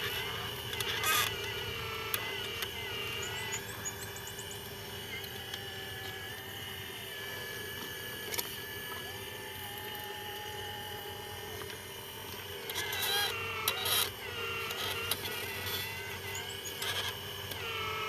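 Small electric motors of radio-controlled construction models whirring steadily, with a few short clicks and a brief wavering whine about 13 seconds in.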